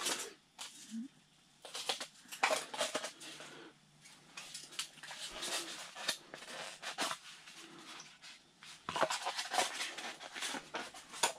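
Close, scattered rustling and light clicking from hands handling a small plastic bait container and fishing line while rebaiting a hook, with a denser run of clicks about nine seconds in.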